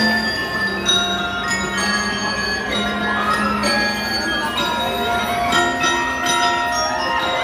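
A drum and lyre corps playing: bell lyres ring out a melody of struck metal notes, one after another, over drums.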